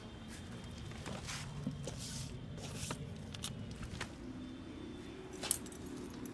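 Hands rubbing and tapping on a head and hair during a head massage: short scratchy rubbing strokes and scattered light taps, with one sharp click about five and a half seconds in, over a low steady background rumble.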